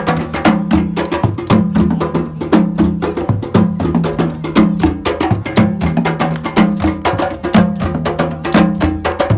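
Percussion-heavy music: a dense, quick pattern of sharp wood-block and cowbell-like strikes over a low figure that repeats about once a second.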